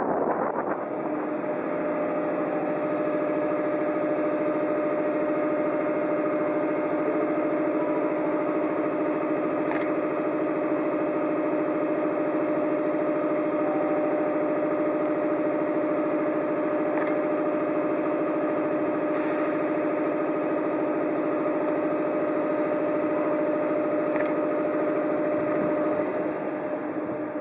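EF66 DC electric locomotive standing still with its cooling blowers running: a steady droning hum with a strong, even pitch, easing slightly near the end.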